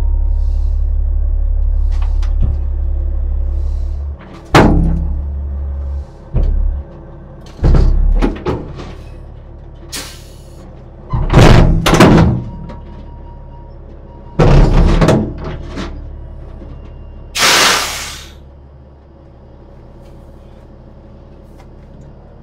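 A diesel truck tractor's engine rumbles as it backs under a flatbed trailer. Then comes a string of loud clunks, bangs and short hisses as the fifth wheel takes the trailer and couples to the kingpin. The engine settles to a quieter idle near the end.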